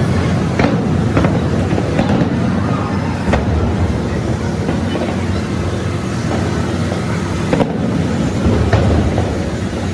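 Large fireworks display going off, a dense continuous rumble of booms with sharper bangs cutting through every second or two.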